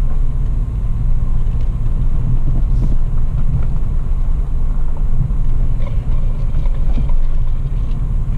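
Toyota FJ Cruiser's V6 engine and drivetrain droning steadily inside the cab as it creeps along a dirt forest track, with a few faint clicks and rattles about six to seven seconds in.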